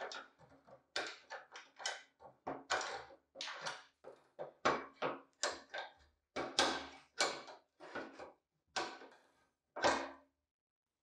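Antique metal paper hole punch being taken apart: its lever arm is rocked on the pivot and worked loose with pliers, giving a quick, irregular run of short metal-on-metal clacks and knocks, about twenty of them, that stop shortly before the end.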